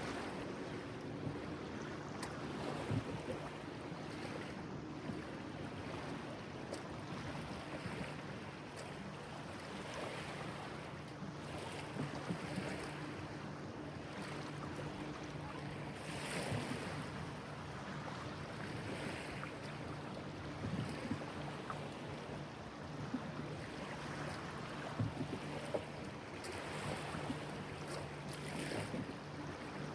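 River water lapping and washing, with wind, as a steady wash of noise that swells every few seconds; a faint low steady hum runs underneath.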